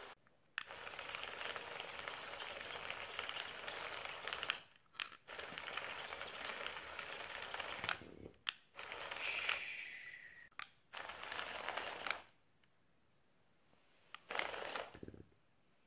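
Small electric gear motors and plastic tracks of a building-block toy robot running on a wooden floor, a faint rattling hiss in several stretches that stop abruptly. A brief whine sounds a little past halfway.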